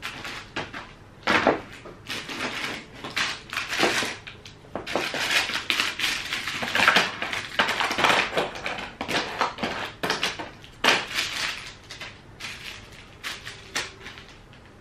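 Makeup products being handled and sorted: many short clatters, clicks and rustles, thickest in the middle and thinning out near the end.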